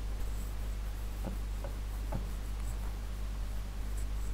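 Steady low background hum from the recording setup, with a few faint clicks a little over a second in and around two seconds.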